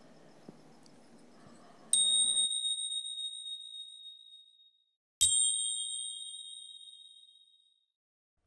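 A high-pitched metallic bell-like ding, struck twice about three seconds apart, each ringing out and fading over two to three seconds.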